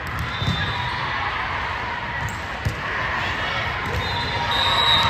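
Spectators at a volleyball match chattering and calling out in a large hall. A ball thuds on the hardwood floor a few times.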